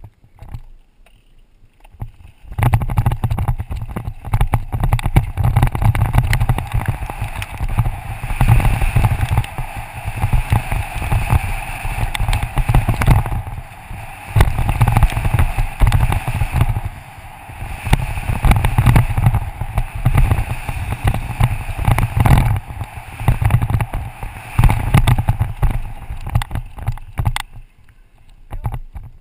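Wind buffeting a helmet-mounted action camera on a fast mountain-bike descent, with tyres rolling over dirt and gravel and the bike rattling and knocking over bumps. It starts about two and a half seconds in, surges and eases with the ride, and dies down near the end.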